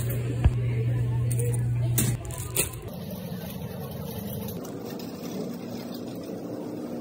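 Shopping cart rolling across a smooth store floor: a steady low rumble from the wheels for about two seconds, then a quieter, even rolling noise.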